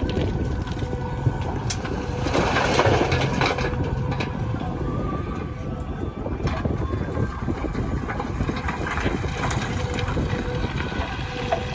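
Diesel engine of a JCB backhoe loader running steadily, with a louder rush of noise about two to three seconds in.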